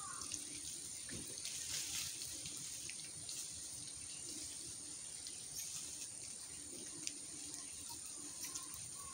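Water dripping and pattering from rain-soaked tree leaves as scattered small ticks, over a steady high-pitched whine, with a short bird chirp at the start.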